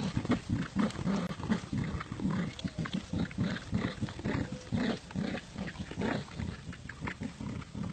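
Dogs growling during a tug-of-war over a toy: a rapid, irregular run of short, low growls.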